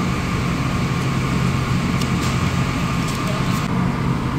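Steady low hum of a vehicle engine, with a few faint clicks.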